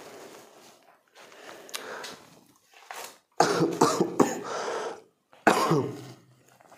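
A man coughing hard in two bouts, the first about three seconds in with several quick coughs and the second shorter, near the end.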